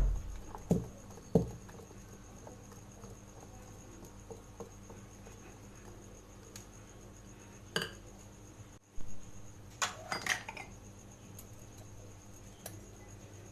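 A utensil knocking and clinking against a mixing bowl as chocolate muffin batter is stirred, with the dry flour-and-cocoa mix folded in bit by bit: a few scattered knocks, two sharp ones in the first second and a half and a quick cluster about ten seconds in.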